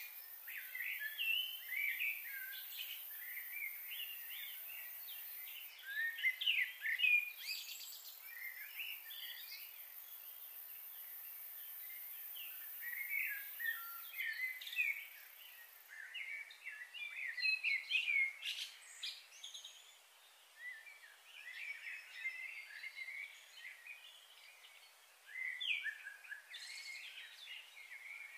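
Birds chirping and calling in many short, quick bursts, with a steady high-pitched hiss that stops about halfway through.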